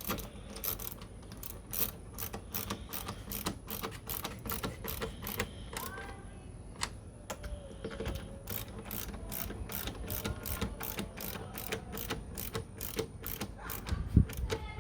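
Ratchet wrench with a 10 mm socket clicking in a steady run of strokes, about two clicks a second, as it tightens the tail light's mounting nuts. A dull knock sounds near the end.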